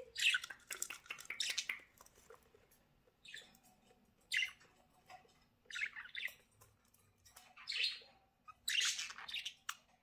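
Budgerigars chirping and squawking in short, high-pitched calls, a bunch of them close together in the first two seconds, then single calls or small clusters every second or two.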